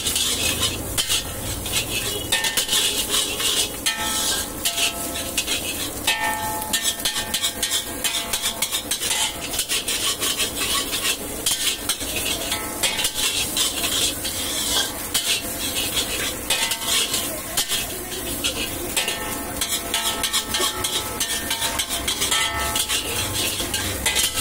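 Metal ladle scraping and clanking rapidly against a large black wok as fried rice is stirred and tossed, over a steady sizzle of frying. The wok gives a brief metallic ring now and then.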